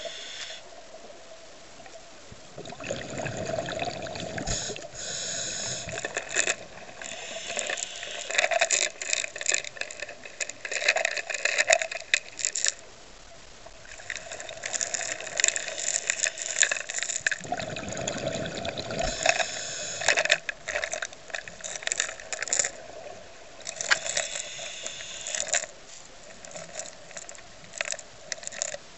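Underwater sound of a scuba diver: two long rushes of exhaled bubbles, about 3 s and 17 s in. Between them come clusters of clicks and crackling, with a steady hum underneath.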